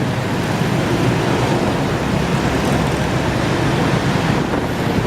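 Steady wind rushing over the microphone on a moving motorcycle taxi, with the motorbike and surrounding road traffic running underneath.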